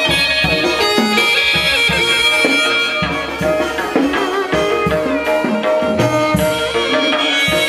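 Traditional Vietnamese folk music: a reedy wind instrument plays an ornamented melody with sliding notes over drums and other percussion.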